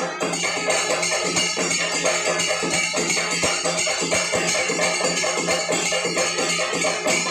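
Chenda melam: a Kerala temple percussion ensemble of chenda drums beaten with sticks, together with ilathalam hand cymbals, playing a dense, fast, unbroken rhythm.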